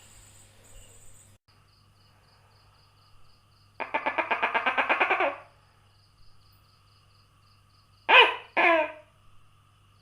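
Tokay gecko calling: a quick rattling run of clicks about four seconds in, then two loud 'to-kek' calls, each falling in pitch, about eight seconds in.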